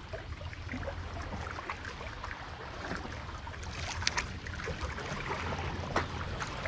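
Seawater sloshing and trickling among concrete tetrapod breakwater blocks, with a few sharp clicks and taps, the loudest about four seconds in and near the end.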